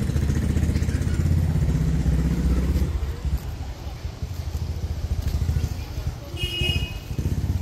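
Motorcycle engine running nearby, louder in the first three seconds and then fading back. A brief high-pitched chirp comes about six and a half seconds in.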